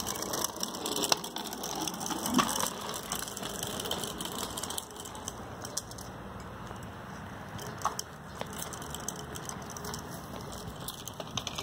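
Bicycle rolling on a smooth paved path, a rattling, clicking ride noise. It is louder for the first five seconds or so, then quieter, with scattered clicks.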